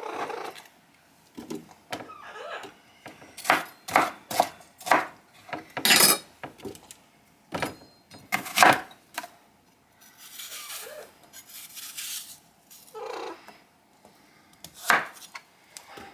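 Kitchen knife rough-chopping an apple and a bell pepper on a cutting board: a run of sharp, irregularly spaced knife strikes.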